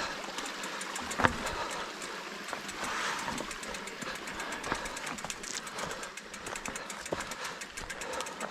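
Mountain bike rattling and clattering along a rocky trail, with a fast ticking in the second half and a few sharp knocks, the loudest about a second in.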